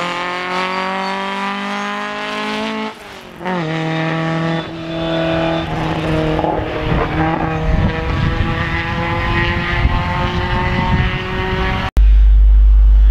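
Ford Anglia 105E race car's four-cylinder engine running hard at high revs, its note falling over the first few seconds, breaking off briefly about three seconds in, then holding fairly steady. Near the end the engine gives way to a loud low rumble.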